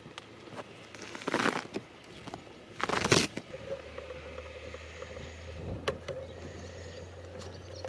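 Two short scuffing noises about a second and a half and three seconds in, then a low, steady motor hum that starts about halfway through and holds.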